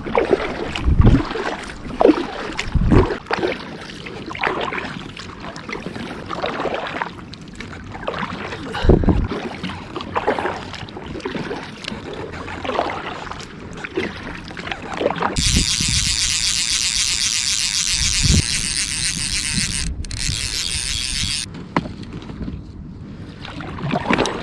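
Water slapping and knocking against a kayak in choppy water, with irregular thumps. About fifteen seconds in, a steady high hiss starts abruptly, lasts some six seconds with one brief break, and stops sharply.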